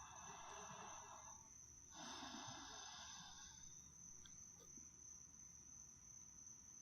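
Faint night-time ambience: crickets trilling steadily at a high pitch, with two soft breathy swells in the first half.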